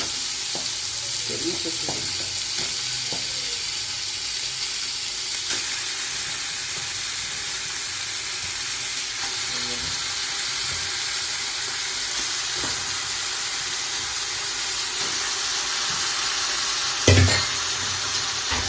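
Chicken pieces frying in hot oil with onions and ginger-garlic paste in a pan: a steady sizzling hiss, with a few light knocks early on and a louder knock near the end.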